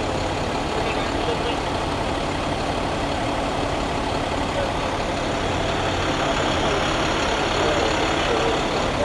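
Fire rescue truck's engine idling with a steady, even drone.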